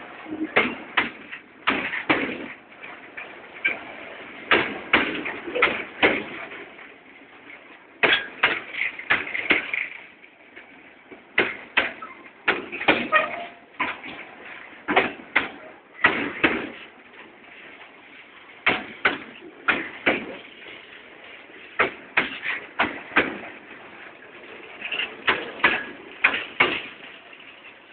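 Empty steel flat wagons of a freight train clanking and rattling, in irregular bursts of sharp metallic knocks every few seconds.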